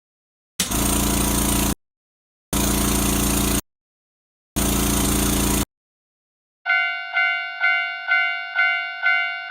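Three bursts of rumbling noise, about a second each with short gaps between them. Then a Japanese railroad crossing alarm starts its "kan-kan" ringing about seven seconds in, about two strikes a second.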